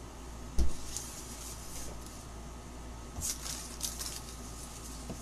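A dull thump about half a second in, then a few light clinks and taps as objects are handled on a kitchen counter.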